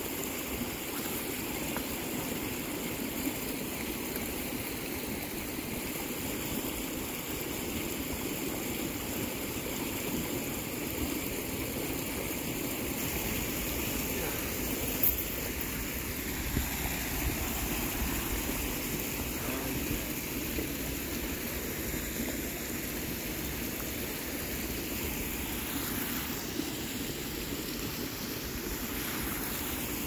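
Muddy, swollen creek rushing steadily as a constant wash of flowing water, with a couple of brief clicks.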